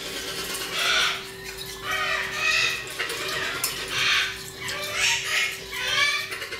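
Parrots calling, a run of squawks about once a second over a steady low hum.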